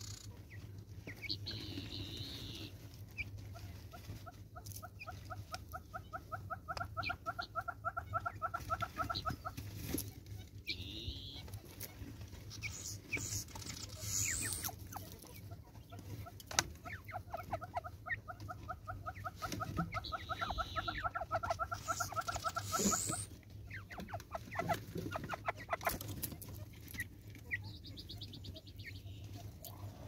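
A gamebird's harsh rattling call, a long run of rapid repeated notes at about six a second that builds in loudness, given twice. Short high chirps from smaller birds and scattered sharp ticks come in between.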